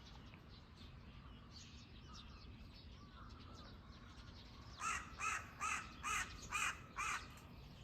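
A bird calling six times in quick succession, about two to three calls a second, starting a little over halfway through, over faint steady outdoor background.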